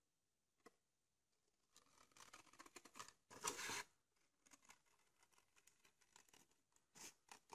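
Scissors cutting through red card: quiet for about the first second and a half, then a run of faint snips and scraping rustles, the loudest cut a little past three seconds in, and a few more short snips near the end.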